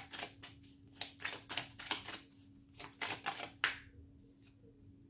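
Deck of archangel oracle cards being shuffled by hand: a quick run of crisp papery snaps, about three or four a second, that stops a little over halfway through.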